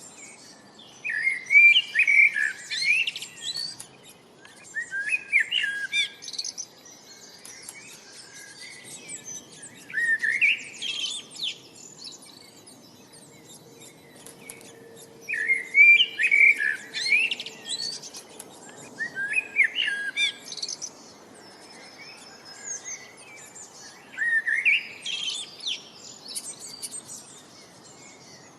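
A songbird singing: bursts of quick, rising chirping notes, each lasting a second or two and repeating every four to five seconds. A faint steady background noise lies under the song.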